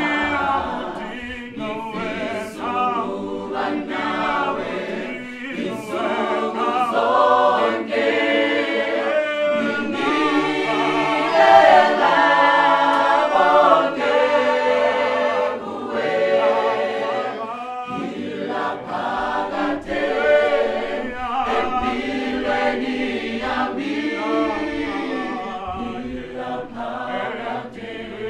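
Mixed choir of men and women singing a gospel song a cappella in several-part harmony, with no instruments. It swells to its loudest about halfway through, then eases off.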